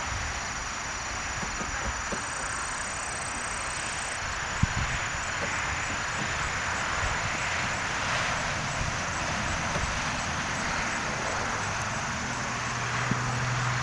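Outdoor summer ambience: a steady high-pitched insect trill and a quick, regular high ticking over a broad hiss, with a vehicle's low hum coming in near the end.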